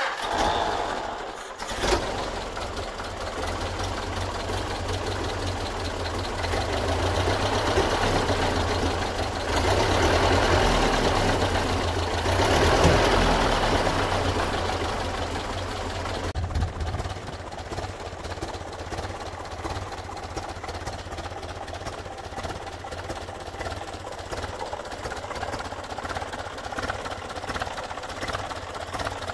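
Ford Model A four-cylinder engine of a homemade tractor starting up suddenly, then running steadily, louder for several seconds in the middle as the tractor drives out, then settling to a steadier, slightly quieter run.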